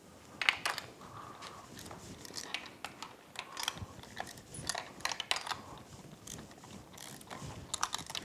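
Ratchet wrench clicking in short irregular runs as spark plugs are loosened and backed out of an outboard engine's cylinder heads.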